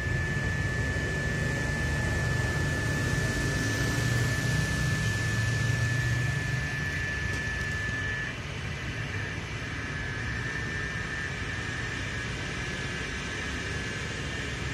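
Airliner engines rumbling at a distance over a steady hiss, easing off about 8 s in. A steady high whine runs alongside and breaks off at the same point.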